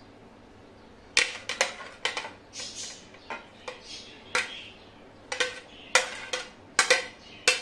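A metal spoon clinking and scraping against a plate as it pushes vegetable ribbons off it: an irregular run of sharp clinks and short scrapes, starting about a second in.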